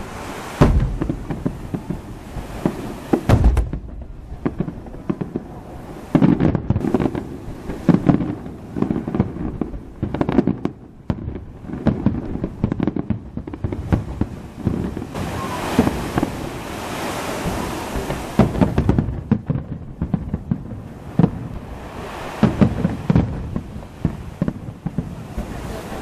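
Aerial fireworks bursting: many booms and bangs in quick, irregular succession, with a spell of denser hissing crackle about two-thirds of the way through.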